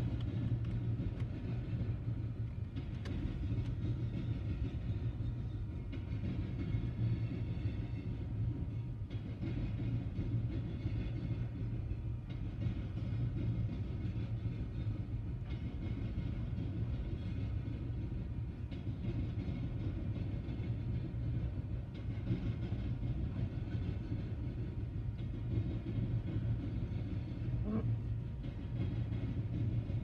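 Empty coal hopper cars of a freight train rolling past, a steady low rumble.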